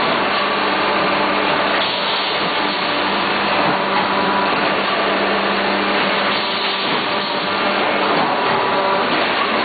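PS foam disposable food container machine running, a steady mechanical hum and rushing noise with a constant low tone.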